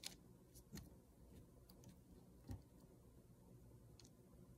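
Near silence with a few faint ticks and one soft knock about two and a half seconds in: small handling noises as fingers press and smooth rice paper onto a small glass bottle.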